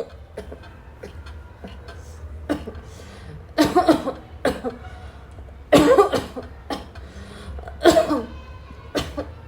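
A woman coughing in repeated bouts: three loud bouts about two seconds apart, each a quick run of two or three coughs, with fainter single coughs before and near the end, over a low steady hum.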